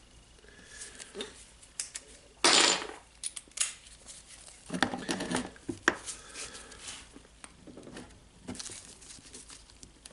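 Hands handling small tools and metal grinder parts: scattered clicks, taps and scrapes, with a louder scraping rustle about two and a half seconds in and another about five seconds in.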